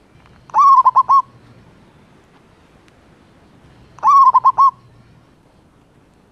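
Male zebra dove song: two short phrases about three and a half seconds apart, each a rising note that runs into a quick string of four or five staccato coos, calling to a female.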